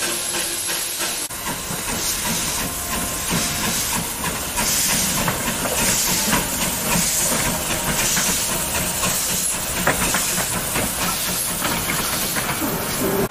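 Small steam tank locomotive moving off with a train, steam hissing loudly from its cylinders. From about four seconds in the hiss swells in repeated beats as it chuffs, with clicks from the wheels and carriages passing close.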